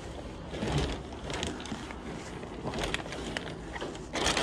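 Clear plastic bag crinkling and rustling as a hard plastic motorcycle top case is handled and pulled out of it, with light knocks of the case. The crinkling gets louder near the end.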